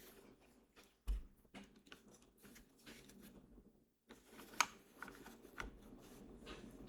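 A few scattered single keystrokes on a TGR Gaf 910 mechanical keyboard with lubed, filmed Popus switches, an aluminium plate and GMK keycaps. A heavier low thud comes about a second in and a sharp click a little past the middle.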